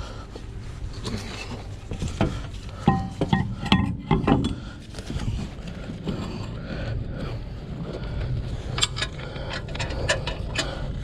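Background music with guitar, over a steady low hum and scattered sharp clanks and knocks, which come in clusters a couple of seconds in and again near the end.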